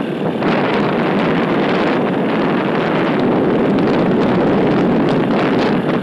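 Steady rush of wind over the microphone on a moving motorcycle, with the motorcycle's engine and road noise beneath it.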